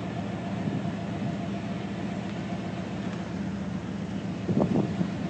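Steady low rumble with a constant hum, like an idling vehicle engine, with a short faint sound near the end.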